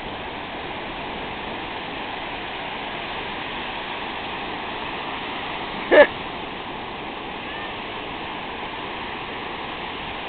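Ocean surf washing steadily in the shallows, with one short high-pitched vocal squeal about six seconds in.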